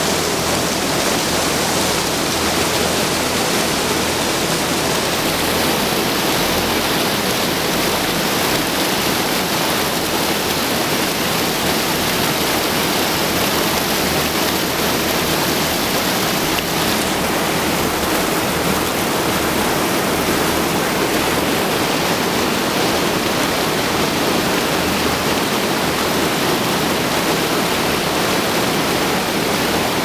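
Shallow, rocky stream rushing over stones: a steady, unbroken noise of running water.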